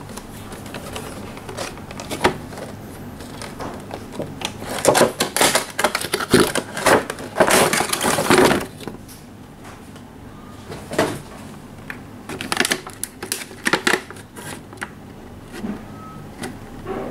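Cardboard box and plastic blister tray being handled as the tray is slid out of the box: rustling and scraping, loudest in a run of crinkling from about five to nine seconds in, then a few scattered taps and clicks.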